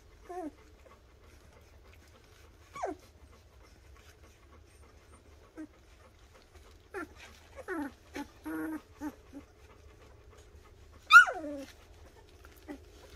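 Two-week-old golden retriever puppies whimpering and squeaking: short, high calls that fall in pitch, scattered through, with a quick run of them midway and one louder squeal near the end.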